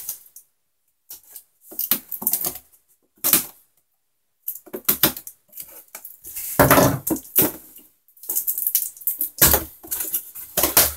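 A cardboard box being handled and its taped flap worked open: irregular crackling, scraping and knocking of cardboard and tape, with short pauses between the bursts and busier handling in the second half.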